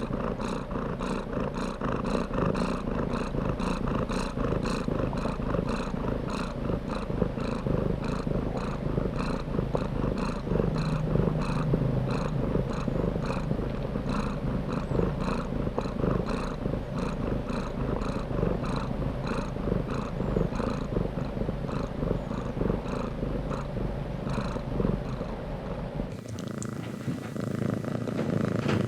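Domestic cat purring steadily and close up, in a regular pulsing rhythm. About 26 s in, the sound changes and loses its deepest part.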